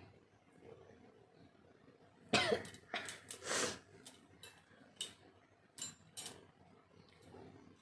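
A woman's forced sneeze, a loud sudden burst about two seconds in, followed by two shorter breathy bursts and a few small sniffs.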